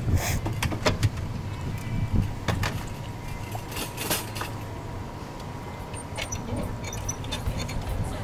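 Scattered metal clicks and rattles of a wire dog crate door being handled and latched in the back of a van, over a steady low rumble.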